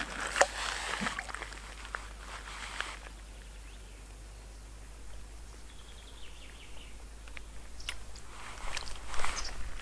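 Rustling and scattered light clicks from an angler handling a freshly caught crucian carp and his tackle. The sounds are busiest about the first second and again near the end, with a quieter stretch between.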